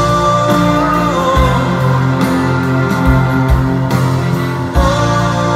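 Live band music with a male lead vocal, backed by acoustic guitar, strings and horns. He sings one drawn-out line at the start, and another begins near the end.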